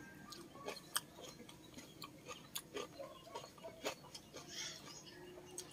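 Faint, irregular clicks and smacks of a person eating octopus by hand: mouth sounds from chewing and fingers picking through food on a plate.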